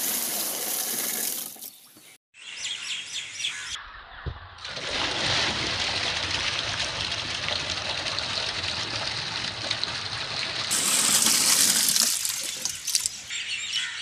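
Water pouring in a heavy stream from a plastic can and splashing into the plastic inner liner of an old refrigerator box as it fills. The sound cuts out briefly about two seconds in.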